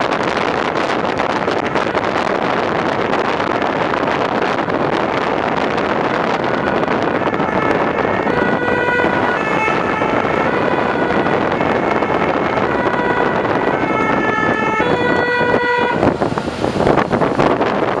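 Wind rushing over the microphone and road noise from a fire engine driving at speed. From about seven seconds in, a two-tone emergency horn sounds through the noise, switching back and forth between two notes, and stops about two seconds before the end.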